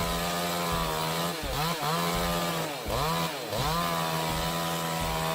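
Chainsaw running at high revs. Its pitch sags and picks back up twice, about a second and a half in and again around three seconds in, as the saw takes load in the cut.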